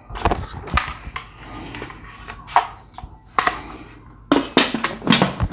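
Instant Pot lid being set on the pot and twisted shut: a series of sharp metal-and-plastic clicks and clunks, coming faster near the end.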